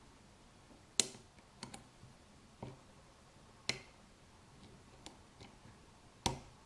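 Lock pick and tension wrench working the pins of a five-pin Yale pin-tumbler cylinder: a handful of sharp metallic clicks at uneven intervals, the loudest about a second in, midway and near the end.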